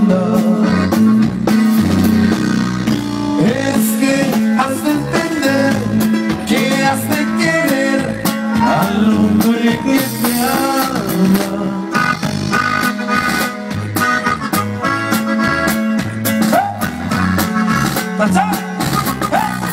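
Live band playing an instrumental break with no vocals: guitar over bass and drum kit.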